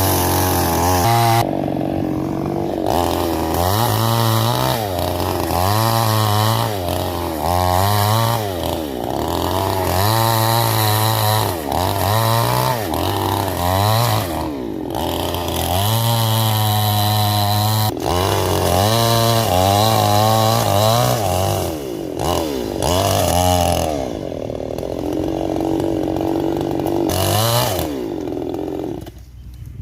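Petrol chainsaw cutting coconut tree wood, its engine revving up and dropping back again and again as it works through the cut, then settling lower near the end.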